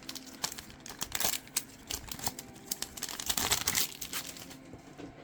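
Crinkling of a foil trading-card booster pack wrapper being handled, with a cluster of sharp crackles about a second in and a denser one from about three to four seconds.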